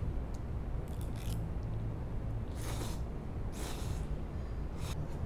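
Steady low room hum with a few short scraping sounds, about a second apart, in the second half.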